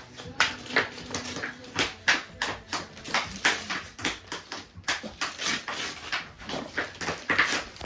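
Wrapping paper being torn and rustled as a present is unwrapped, in quick, irregular crinkling bursts.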